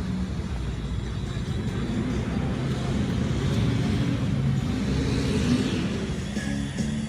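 Traffic passing: a vehicle's noise swells to a peak about five and a half seconds in and then fades.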